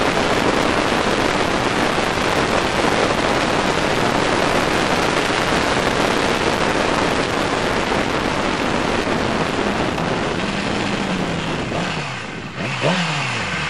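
Heavy wind rushing over the microphone of a sport bike at speed, covering the engine. Near the end the wind eases and a motorcycle engine is heard, its pitch rising and falling twice.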